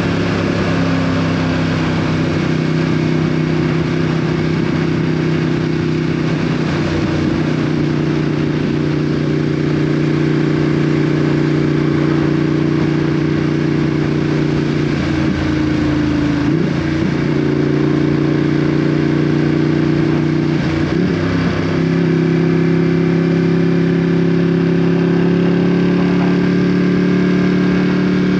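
Ducati Panigale V2's 955 cc L-twin engine running through an Akrapovic exhaust as the bike is ridden, held at a mostly steady pitch. There are brief dips and changes in pitch about halfway through and again a few seconds later.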